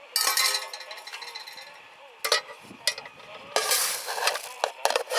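Metal camp cookware and utensils being handled: a few sharp clinks and two short scraping, rattling bursts.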